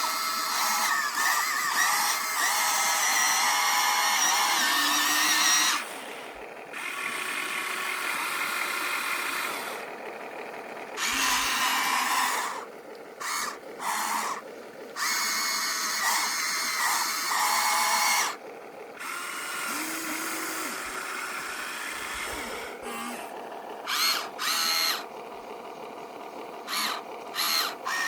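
Small electric motors and gearboxes of radio-controlled toy trucks whining, starting and stopping in stretches of a few seconds, with several short bursts near the end.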